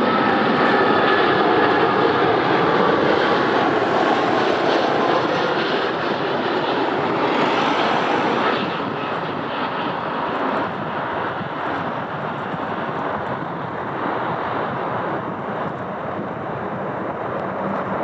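Airliner engines: a loud, steady rushing noise with faint whining tones early on. It drops in level about halfway through and keeps fading.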